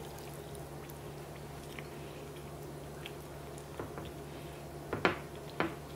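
A spoon pressing and stirring thin radish slices in pickling liquid in a glass container: soft wet squishing, with a few short sharp clicks about four to five and a half seconds in, the loudest about five seconds in.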